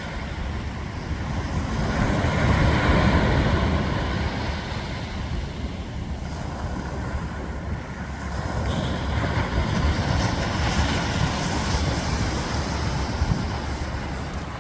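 Ocean surf on a beach: waves washing in and swelling louder twice, about two seconds in and again around ten seconds in, with wind rumbling on the microphone.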